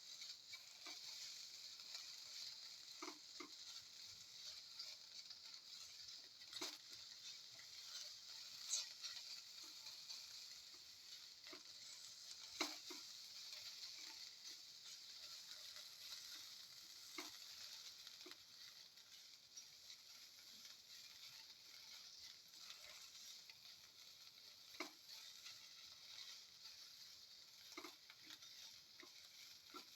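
Shredded chicken sautéing in oil in a pan: a faint, steady sizzle, with a stirring spoon clicking against the pan now and then.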